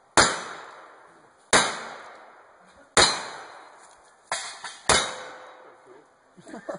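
Revolver fired one-handed at a steady pace: four shots about a second and a half apart, each followed by a long fading echo, with a fainter crack between the third and the fourth.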